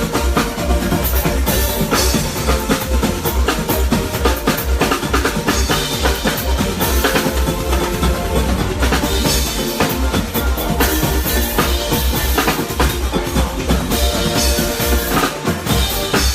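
Live band playing with the drum kit to the fore: a steady kick-drum beat under snare hits, with pitched instruments sustained beneath.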